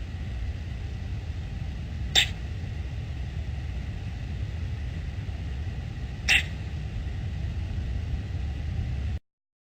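A pet makes two short, sharp, hiccup-like sounds about four seconds apart over a steady low rumble. The owner wonders whether they are hiccups.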